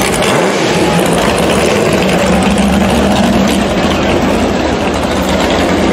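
Rock bouncer buggy's engine running hard in a steady, loud drone with a deep rumble underneath, under load on a rocky hill climb.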